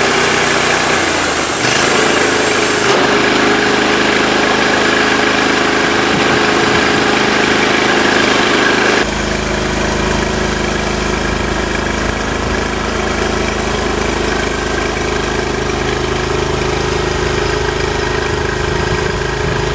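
Vallee 'Big Red' portable sawmill's engine running steadily, its note shifting about two, three and nine seconds in.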